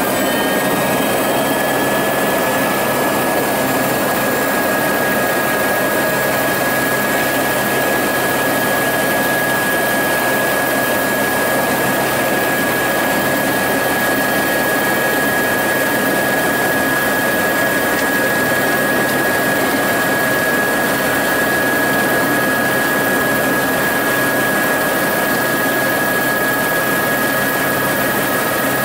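Aircraft engine running steadily with a constant high whine over a dense drone; its pitch rises slightly in the first second, then holds.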